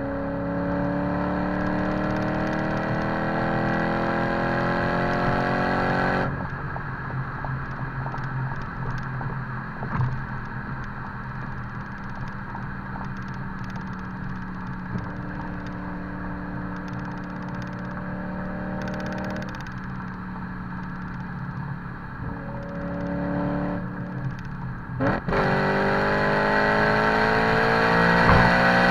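BMW E90 M3's 4.0-litre V8 through a Megan Supremo catback exhaust with the secondary catalytic converters removed, pulling hard with its pitch rising for about six seconds. It then drops off suddenly and runs at a steadier, lighter throttle, and climbs into a second hard pull near the end.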